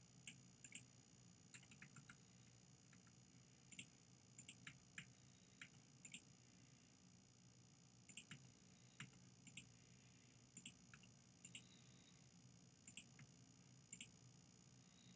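Computer mouse buttons clicking: short, sharp clicks at irregular intervals, some in quick pairs, over a faint steady hum.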